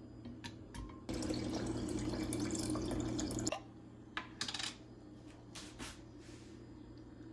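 Kitchen tap water running for about two and a half seconds, then stopping, followed by a few short clicks and knocks as a glass honey jar is handled and opened.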